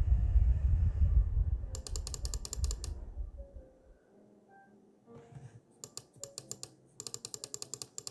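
Three runs of quick clicks, about ten a second, as a brightness setting in photo-editing software is stepped up click by click: one about two seconds in, one about six seconds in and one near the end. A low rumble sits under the first half and fades out about four seconds in.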